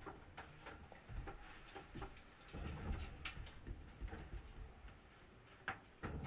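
Washing machine running, heard as faint, irregular low thumps and clicks.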